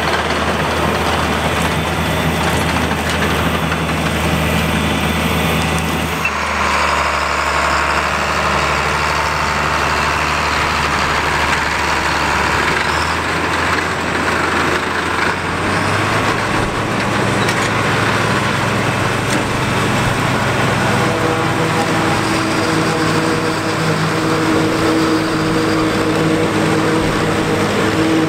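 John Deere 4455 tractor's six-cylinder turbocharged diesel running steadily under load, pulling a John Deere 3975 forage harvester that is chopping standing corn and blowing it into the wagon. The sound changes abruptly about six seconds in and again around sixteen seconds.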